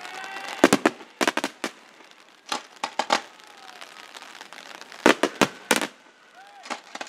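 Aerial firework shells bursting in four quick volleys of sharp bangs, with short gaps between them.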